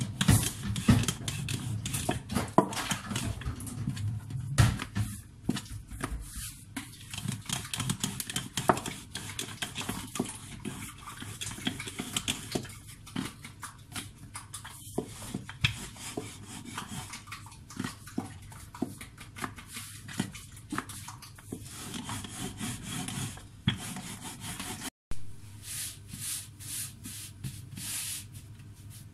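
Wooden rolling pin rolling out dough on a floured stone countertop: irregular rubbing and knocking of wood on stone, with hands patting and moving the dough.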